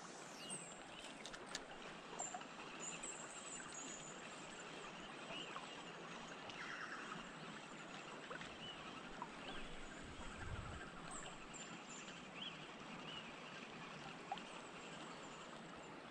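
River water flowing steadily, a faint even rushing, with a few faint high chirps and small clicks over it.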